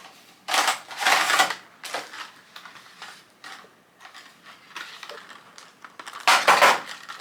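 Packaging rustling and crinkling as a small set of paper drink tags is handled and searched through, in two main bursts: one starting about half a second in and lasting over a second, and a shorter one near the end.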